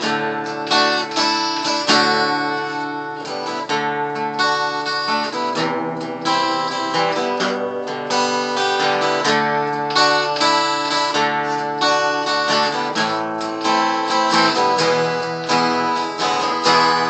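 Acoustic guitar strummed without singing: an instrumental break between verses of the song.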